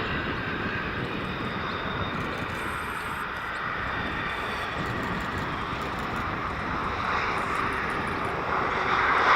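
Jet engine noise from a landing Airbus A330-200 with General Electric CF6-80E1 turbofans, a steady rush that grows louder near the end.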